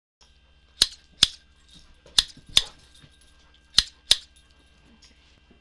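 Six sharp cracks in three close pairs, the two in each pair about half a second apart, over a faint low hum.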